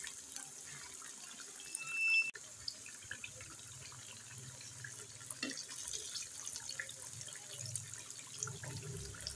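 Battered potato slices deep-frying in hot ghee: a steady sizzle full of small crackles, with the occasional clink of forks against the pan as the slices are turned. A brief high squeak about two seconds in.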